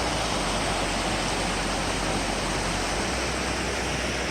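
Flowing creek water rushing over rocks, a steady even hiss.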